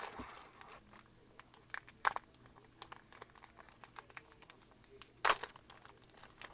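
Foil booster-pack wrapper crinkling and tearing as it is opened by hand, in irregular sharp crackles, the loudest about two seconds in and about five seconds in.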